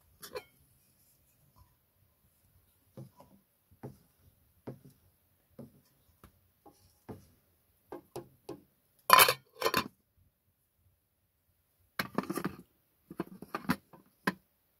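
Aluminium cooking pot and lid clinking and clattering as the lid is handled, lifted off and set back on, with scattered light knocks. The loudest clatter comes about nine seconds in, and a run of clinks follows near the end.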